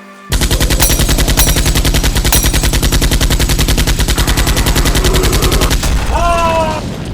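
Rapid automatic gunfire: one continuous burst that starts suddenly and stops after about five and a half seconds, followed by a short falling tone near the end.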